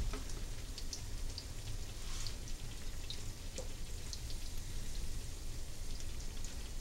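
Spinach fritter batter frying in hot oil in a pan: a steady sizzle dotted with scattered small pops and crackles.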